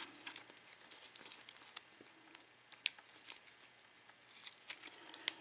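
Faint, scattered small metallic clicks and ticks of a key being worked in a CES euro lock cylinder, with one sharper click near the end.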